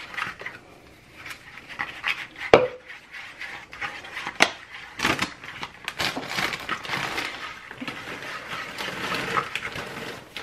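A black spatula stirring thick nacho cheese sauce mixed with hot sauce in a paper bowl: irregular scraping and stirring, with a few sharp knocks against the bowl. The loudest knock comes about two and a half seconds in and another about four and a half seconds in.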